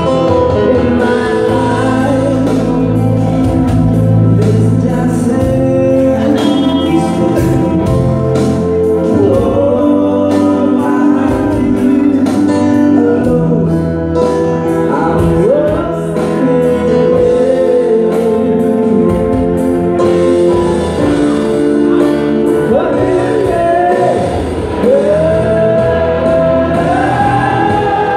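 Male vocalist singing live through a microphone over a small band, with electric guitar, keyboard, steady low notes and light high percussion ticks. Near the end the voice climbs into a long held note.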